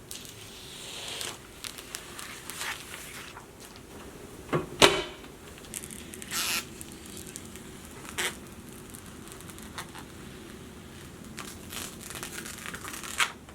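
Handling noise from assembling a desktop PC: scattered clicks, knocks and scrapes of parts and plastic being handled, the loudest a pair of knocks about five seconds in.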